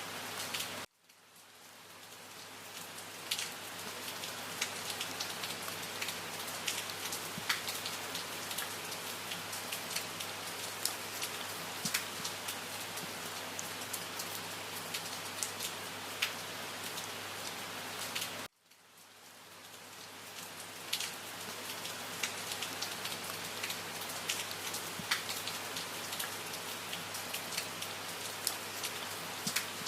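Steady rain falling on a surface, with many individual drops pattering. It cuts out suddenly twice, about a second in and again about eighteen seconds in, each time fading back up over a few seconds.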